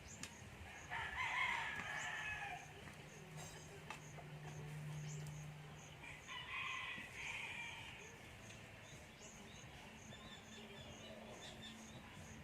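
A rooster crowing twice, about five seconds apart, with a faint high chirping repeating about twice a second throughout.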